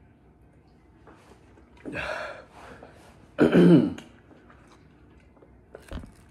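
A person's mouth and throat sounds while drinking milk against the burn of a very hot pepper chip. There is a breathy gasp about two seconds in, then a loud voiced exhale that falls in pitch as the jug comes away from the mouth, and a short sharp sound near the end.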